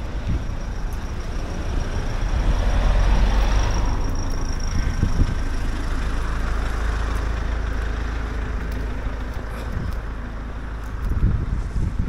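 Steady low rumble of vehicle noise, swelling a little about two to four seconds in.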